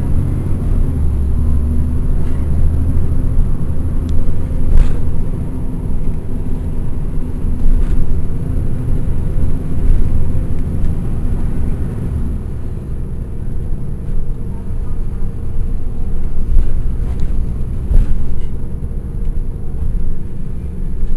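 Caterpillar C13 ACERT diesel engine of a NABI 416.15 transit bus, heard from the rear seats inside the bus, running with a heavy low drone that drops back and lightens about twelve seconds in. A few sharp knocks and rattles come through along the way.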